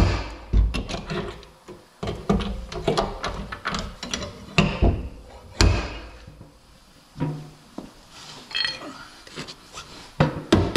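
Slide hammer pulling on stud-welded pins in a steel truck door: the sliding weight knocks against its stop in a series of irregular thunks as the dent is worked out slowly, with a quieter stretch about two-thirds of the way through.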